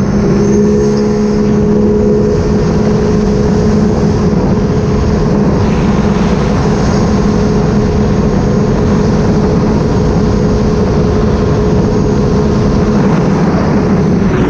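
Sea-Doo RXP-X 300 jet ski's supercharged three-cylinder Rotax engine running at a steady cruising speed, with the rush of water and wind under it. The engine note starts to fall as the throttle eases off at the very end.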